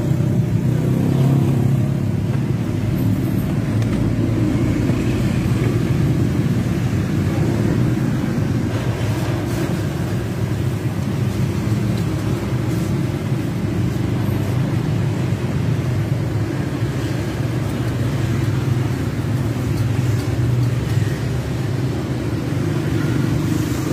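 Steady low engine hum that holds an even pitch throughout, with a few faint clicks near the middle.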